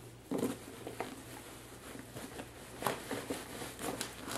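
Soft fabric rustling and light handling knocks as folded burp cloths are pushed into the side pocket of a fabric diaper bag.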